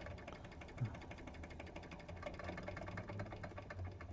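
Doll 387/3 model steam engine running on steam with a quick, even clatter of clicks, slowing as the steam is throttled back. A brief low sliding tone sounds a little under a second in.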